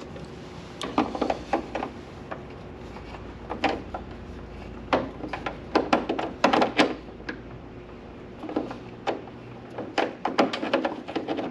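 Clunks, rattles and knocks of a table saw's motor being worked loose and shifted by hand, coming in irregular clusters: about a second in, around five to seven seconds in, and again from about ten seconds in.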